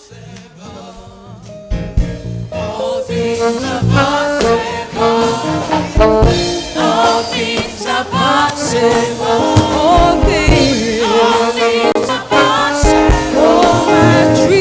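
Gospel worship music: a live band with singing voices. It comes in softly, then builds up about two seconds in to a full sound with a steady beat.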